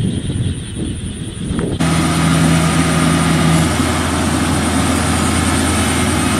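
Rice combine harvester's diesel engine running steadily at close range, coming in abruptly about two seconds in; before that the engine is fainter and more distant.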